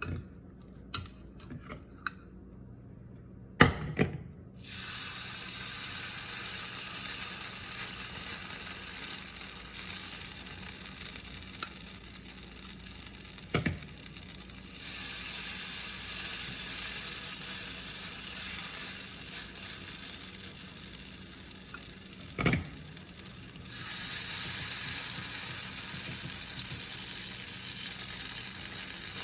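Green onion pancake frying in oil in a pan, a steady sizzle that starts abruptly about four seconds in after a few light clicks and a sharp knock. The sizzle gets a little louder for a stretch in the middle and is broken by two single knocks, likely a utensil against the pan.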